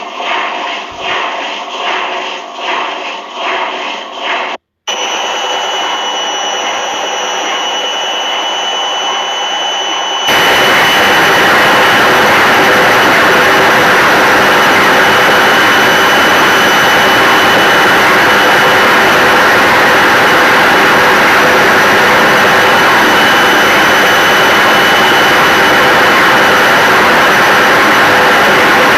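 Washing machine running: first a rhythmic swishing pulse about one and a half times a second, then after an abrupt cut a steady whir with a thin high whine, which about 10 seconds in jumps to a much louder, steady roar with the same whine.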